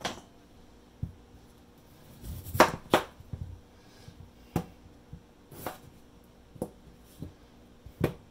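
Knife cutting through raw russet potatoes and knocking on a plastic cutting board: a series of short sharp knocks, about one a second, the loudest a pair about a third of the way in.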